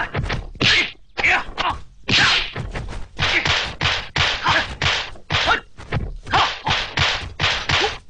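Kung fu film fight sound effects: a rapid run of sharp punch and block whacks and thuds, about two to three a second, as two fighters trade blows.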